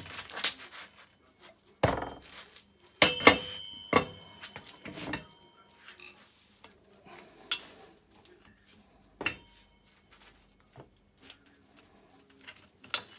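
Metal being handled: several separate knocks and clinks from a steel ATV swingarm and hand tools, some ringing briefly, with quieter gaps between. Near the end a screwdriver is worked against the swingarm's pivot bushing cap.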